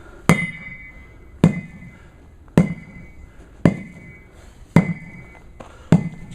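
Sledgehammer strikes on a tire at a steady pace, six blows about one a second. Each blow is a heavy thud with a short metallic ring.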